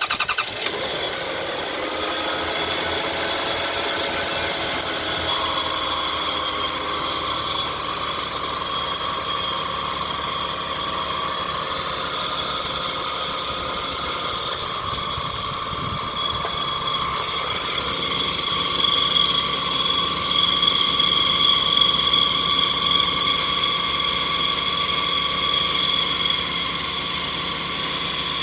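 Toyota Harrier's 3.0 L 1MZ-FE V6 running just after start-up, its pitches settling downward over the first few seconds, with a steady high-pitched whistle over the engine that the owner puts down to the alternator.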